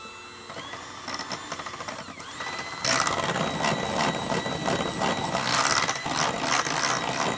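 Electric hand mixer running with its wire beaters in pancake batter: the motor whine rises as it spins up, gets louder about three seconds in, and winds down at the end.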